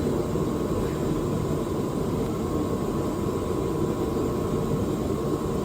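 Steady low rushing hum of a running fan or blower, with a faint steady tone above it and no changes.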